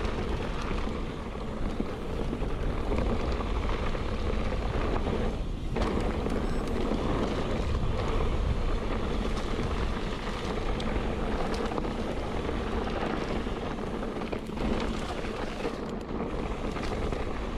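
Mountain bike rolling fast down a dirt trail, with wind rushing over the rider's camera microphone. A steady rush of noise with no clear engine note.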